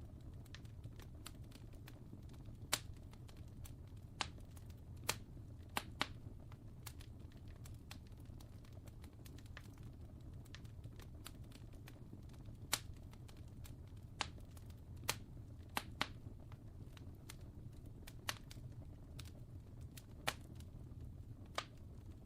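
Fire crackling: a steady low rumble with sharp, irregular pops, about a dozen of them loud.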